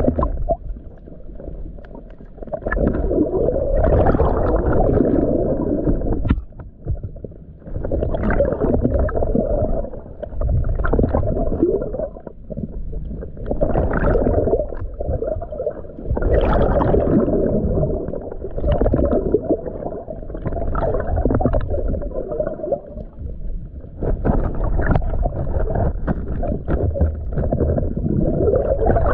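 Muffled water gurgling and rushing around an action camera held underwater, in surges every two to three seconds, with a stream of bubbles near the end.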